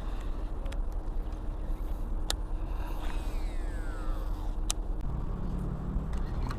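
Steady low rumble of road traffic. A motor vehicle passes about three seconds in, its pitch falling as it goes by, and a low engine hum sets in about five seconds in. Two sharp clicks stand out.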